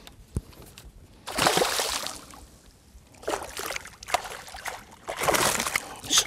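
Hooked tarpon thrashing at the surface beside a boat's hull: a series of splashes, the loudest about a second and a half in and again near the end.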